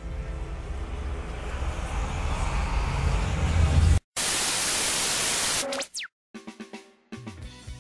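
Intro music building to a loud swell, cut off abruptly about four seconds in by a burst of loud TV-static hiss lasting about a second and a half that ends in falling tones. After a short gap, quieter music with drum strikes starts near the end.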